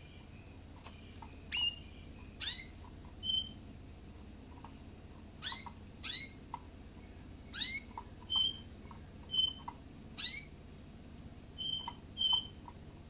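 A caged finch calling: about a dozen short, sharp calls at irregular intervals, some sweeping quickly down in pitch, others brief level chirps, with faint small ticks in between.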